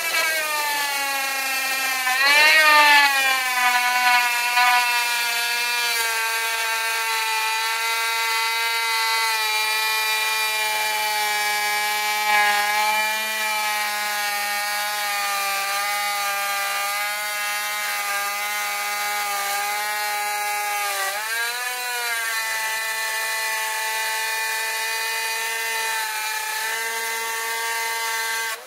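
Plunge router motor running at full speed as its bit cuts a channel along the seam between two clamped pieces of Corian solid-surface countertop: a steady high whine that dips in pitch and recovers about two seconds in and again around twenty-one seconds, then cuts off near the end.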